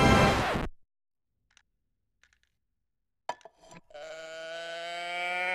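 Music ending abruptly about half a second in, then near silence with a few faint clicks. From about four seconds in, a cow-print toy moo can gives one long, slightly rising mechanical moo.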